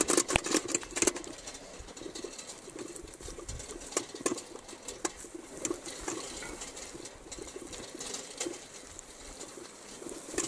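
Bicycle ridden over a bumpy grass track, rattling with irregular light clicks that are busiest in the first second.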